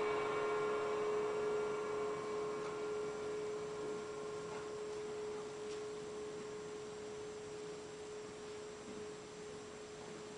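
The final note of the song ringing out and slowly fading: one steady tone whose higher overtones die away within the first couple of seconds, with a few faint knocks midway.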